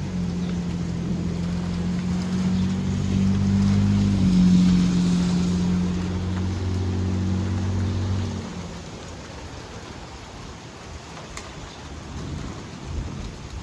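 Rain falling in a thunderstorm, with a low, steady droning rumble that swells about four seconds in and dies away about eight seconds in.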